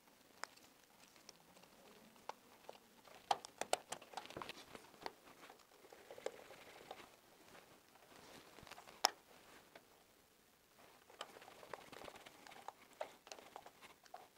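Faint scattered clicks, taps and rustles of a flush-mounted switch insert being pressed into its wall box and fastened with a screwdriver, plastic and metal parts knocking. A cluster of clicks comes about three to four seconds in, and one sharp click about nine seconds in.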